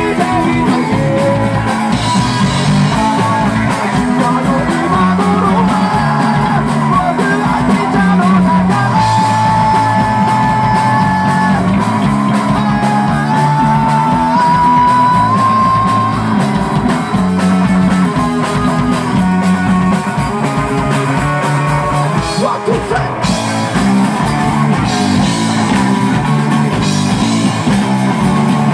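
Live rock band playing loud: electric bass and drum kit driving a steady beat under guitar, with a sung lead line.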